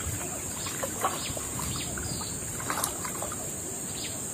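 Shallow river water splashing and sloshing in a few short bursts as a fishing net is worked by hand in the water, over a steady high-pitched insect drone.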